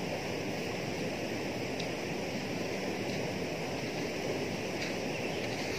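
Steady, even rushing background noise, with a couple of faint clicks about two seconds in and again near the end.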